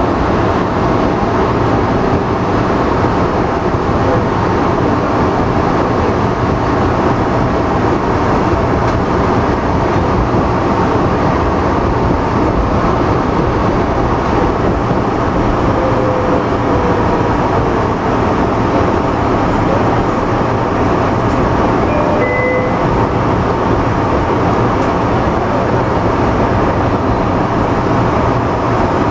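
MBTA Red Line 01800-series subway train running on the rails: a steady, loud rumble of wheel and rail noise with a hum of steady tones, and a couple of brief faint squeals.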